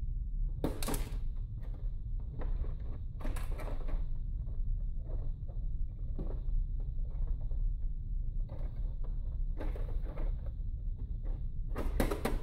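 Hard plastic clicks and knocks from a large plastic toy AT-AT being handled while its hinged doors and panels are opened, with louder knocks about a second in, after about three seconds, near ten seconds and near the end.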